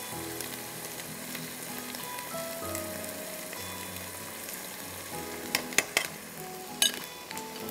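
Diced potatoes sizzling and frying in oil in a nonstick wok, a steady sizzle, with a few sharp taps about five and a half to seven seconds in.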